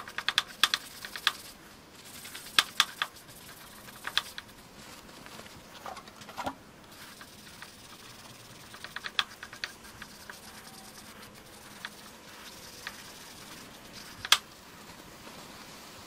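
A rag rubbing and wiping the mating face of a tractor water pump housing, with clusters of quick clicks and rustles as the metal part is handled and shifted on the steel bench. One sharper click about fourteen seconds in.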